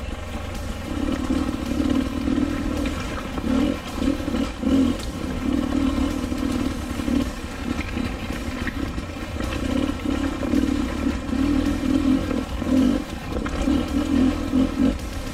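Dirt bike engine riding on and off the throttle, its note swelling and dropping every second or so.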